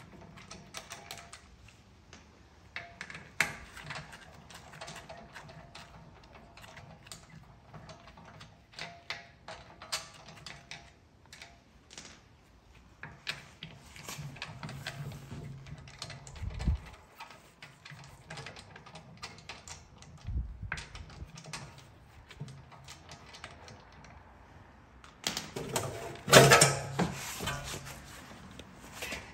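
Irregular clicking and knocking of hand tools and parts being handled during car repair work. There are two dull thumps in the middle and a louder burst of clattering near the end.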